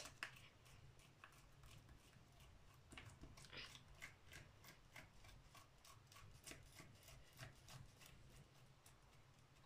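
Faint, irregular scratchy taps of a felt-tip marker scribbling over a thin layer of clear slime on a wooden tabletop, a few strokes a second.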